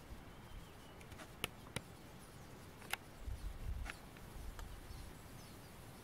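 Himalayan goral giving short, sharp alarm calls, three in quick succession in the first half, the last about three seconds in. A brief low rumble follows.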